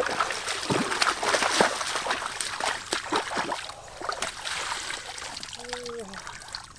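Irregular splashing and trickling of water. A short voice sound comes near the end.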